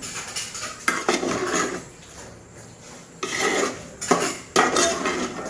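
A spoon scraping and knocking against the inside of a metal cooking pot as it stirs thick egg masala gravy, in several short bouts with pauses between.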